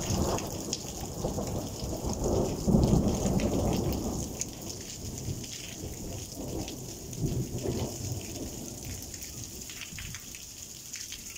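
Steady rain falling and pattering on stone paving and roofs, with a long roll of thunder that builds to its loudest about three seconds in, fades, then rumbles again around seven to eight seconds in.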